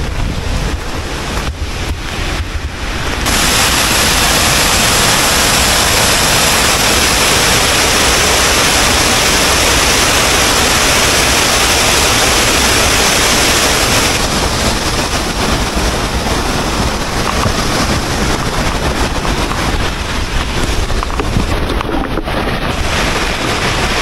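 Steady rushing of a tall mountain waterfall in spate, an even hiss of falling water with no distinct events. It gets louder and brighter from about three seconds in until about fourteen seconds in.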